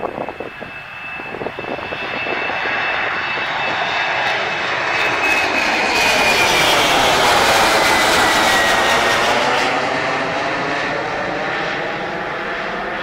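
Embraer 190's two GE CF34 turbofans at takeoff power as the jet climbs out and passes overhead. The engine noise builds to its loudest about halfway through, then eases off as the jet flies away. A high fan whine sinks slowly in pitch as it goes by.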